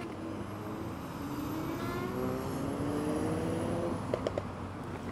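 Segway GT2 electric scooter pulling away from a stop: its dual hub motors whine, rising in pitch over a couple of seconds as it speeds up, over steady wind and road noise. A few sharp clicks come near the end.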